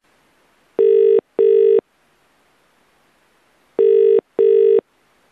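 British telephone ringing tone heard down the line: two double rings ("brr-brr ... brr-brr") of a call waiting to be answered.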